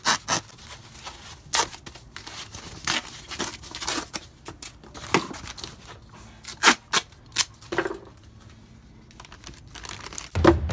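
Protective covering for a new radiator being torn and trimmed by hand: a run of short, sharp tearing and crinkling sounds with pauses between them, then a louder thump near the end.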